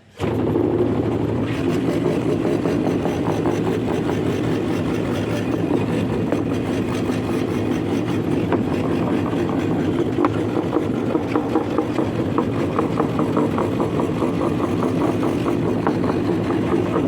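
Homemade scroll saw running, its motor giving a steady drone with a fast chatter from the reciprocating blade as it cuts wood. The sound comes in suddenly and holds steady.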